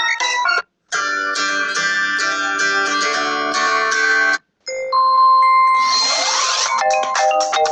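Coolpad Note 5 Lite ringtones played one after another. A plucked-string melody breaks off into a short silence about four and a half seconds in. The next tone starts with steady chimes and a rising sweep, then goes into a repeating plucked pattern.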